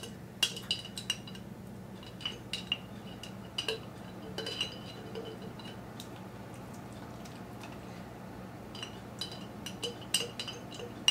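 A metal utensil clinking and scraping against the inside of a glass jar of Alfredo sauce as the last of the sauce is scraped out. The clinks come in short ringing clusters, fall away for a few seconds in the middle, and pick up again near the end.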